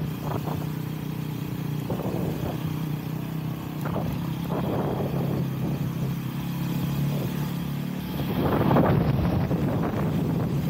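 Honda CRF-X dirt bike's single-cylinder four-stroke engine running at steady, moderate revs, with wind noise on the microphone. About eight seconds in, a louder rush of noise swells for a second or so.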